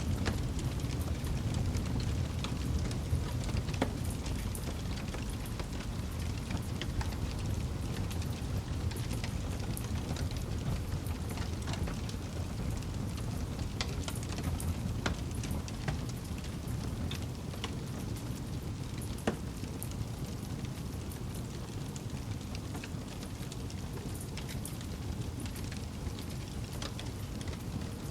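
Wood campfire burning: a steady low rush of flame with scattered crackles and pops, one sharper pop about two-thirds of the way through.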